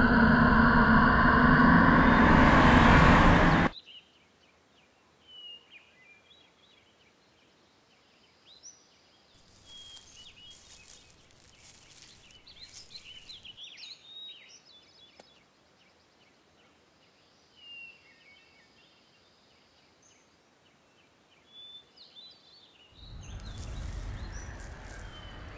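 A loud rushing noise cuts off suddenly a few seconds in. After it comes quiet woodland ambience with scattered short bird chirps. A rushing noise swells back in near the end.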